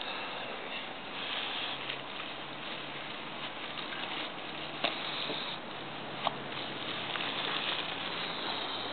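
Light rustling of ultralight tent fabric as a person shifts about and crawls out through the tent doorway, with two small clicks partway through, over a steady hiss.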